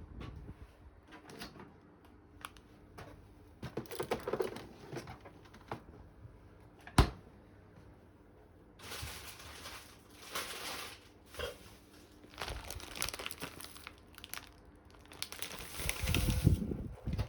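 Household handling sounds: irregular crinkling and rustling with light knocks, and one sharp click about seven seconds in.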